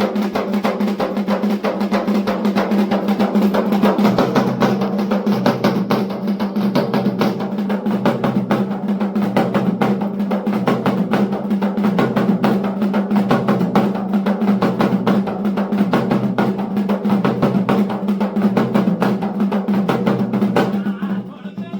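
Fast, continuous drumming in the style of the Garhwali dhol and damau, rapid strokes running unbroken, over a steady low hum.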